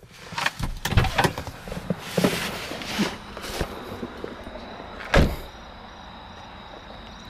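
Car door opened, with clicks, knocks and rustling as someone climbs out. The door is then shut with one loud slam about five seconds in.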